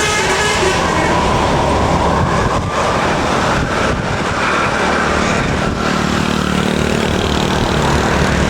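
Large bus engine running close by with road and traffic noise. The last notes of a multi-tone telolet musical horn fade out in the first second.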